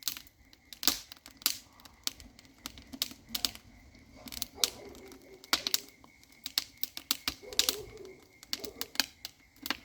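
Wood fire crackling, with irregular sharp snaps and pops, some louder than the rest.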